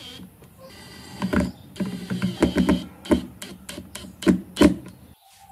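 Cordless 20V impact driver whirring and then driving screws into a wooden speaker cabinet in a run of short, sharp bursts, fastening a woofer's mounting ring. It stops abruptly near the end.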